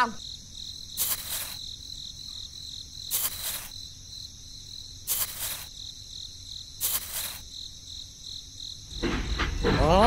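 Crickets chirping: a steady high trill with a louder chirp about every two seconds. Near the end a low rumble comes in.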